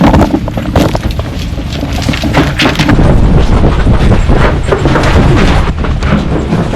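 People running, with irregular thumps of footsteps and heavy jostling of a handheld camera over a loud, low rumble.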